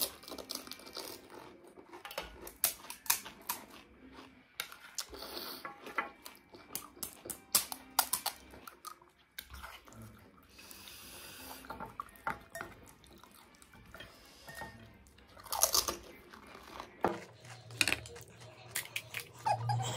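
Crisp panipuri (golgappa) shells cracking and crunching as they are poked open and chewed, in many short, irregular crunches, with a spoon scraping in a ceramic bowl of filling.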